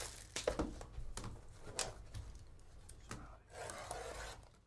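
Plastic shrink-wrap crinkling and a cardboard trading-card box being opened and handled by hand: a string of sharp clicks and taps, then a short rustle near the end.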